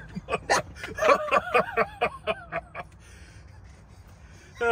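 Laughter: a run of quick, rhythmic voiced bursts that dies away about three seconds in, leaving only a faint steady background.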